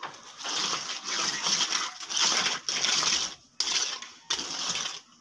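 Trowel scraping across wet concrete as the surface is spread and smoothed, in a series of short strokes about one or two a second.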